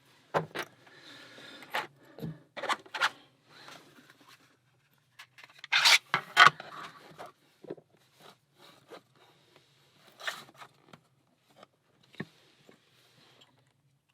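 Handling noises from an opened challenge lock and small metal tools: irregular clicks, scrapes and rubbing, loudest about six seconds in.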